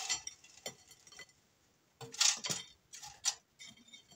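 Air-fried french fries tipped from a bowl onto a ceramic plate and pushed around by hand: light clatter with a few clinks and knocks of bowl against plate. The loudest knocks come about two seconds in and again a second later.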